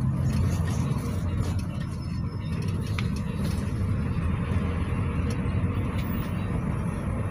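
GAZelle Next minibus with an Evotech engine driving, heard from inside the passenger cabin: a steady low engine and road rumble with a few faint clicks.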